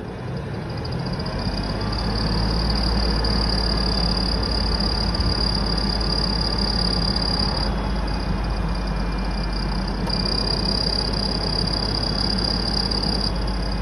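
Ford 4.2 V6 engine running, building up over the first second or two, with a steady high-pitched squeal from the front accessory drive that dips briefly a few times. The squeal remains despite a new belt, a rebuilt alternator and power steering pump, and a different AC compressor clutch.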